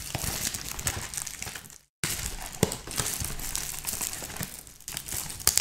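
Clear plastic shrink-wrap crinkling and tearing as it is peeled off a trading-card box, with sharp crackles throughout. The sound cuts out completely for a moment about two seconds in.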